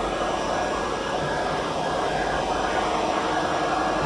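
Steady drone of workshop machinery running, a noisy rush with a faint constant hum and no sudden knocks.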